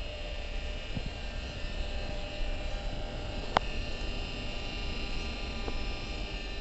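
Steady hum of the cup sambrani machine's hydraulic power pack running, with one sharp click about three and a half seconds in and a couple of fainter ticks as the steel tray of pressed cups is slid out from the press.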